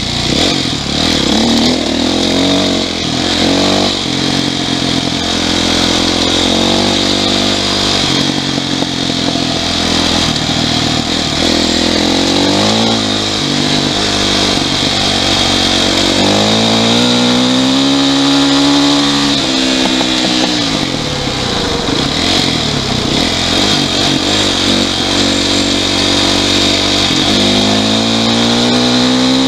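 Yamaha YZ450F single-cylinder four-stroke dirt bike engine under way, its pitch rising and falling as the throttle is rolled on and off through the gears, with one longer climb in revs around the middle.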